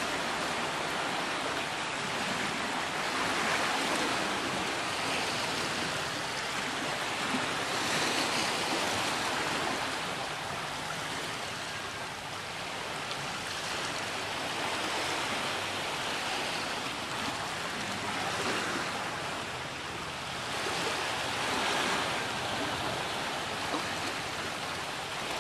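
Sea surf washing on the shore: a steady rushing that swells and eases every few seconds.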